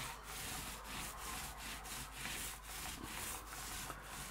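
Mini paint roller rolled back and forth over MDF panelling, laying on primer undercoat: a faint, rhythmic rubbing at about three strokes a second.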